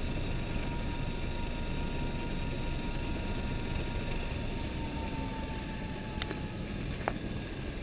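Helicopter's turbine engine and rotor running on the ground after landing, heard inside the cabin as a steady whine over a low drone; the whine drops slightly in pitch about five seconds in. Two short clicks near the end.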